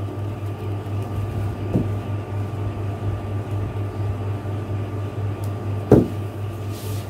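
A steady low mechanical hum runs under hands folding and pinning fabric on a table, with a light tap about two seconds in and a sharper knock near the end.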